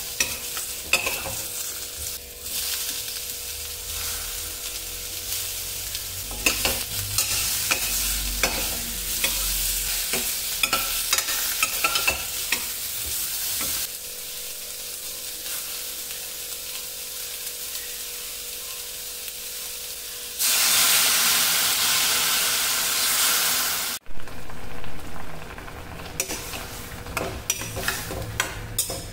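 Food frying in hot oil in a stainless steel kadai, with a steel ladle scraping and clinking against the pan. About twenty seconds in the sizzling turns to a louder, harsher hiss for a few seconds, then breaks off suddenly.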